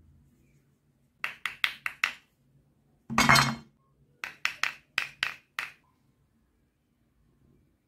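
Hard bars of soap tapped together in quick clicks: five taps, then one louder, longer knock, then six more taps.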